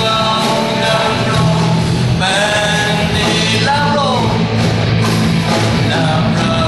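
Live church worship band playing a rock-style praise song, with a lead vocalist singing the melody over a full band.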